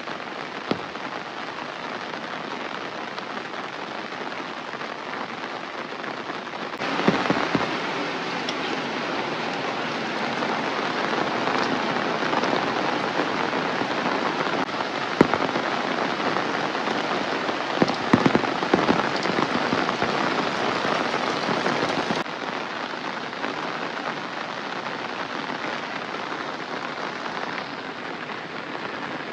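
Steady rain falling, heavier and louder from about seven seconds in until about twenty-two seconds, with a few sharp taps scattered through it.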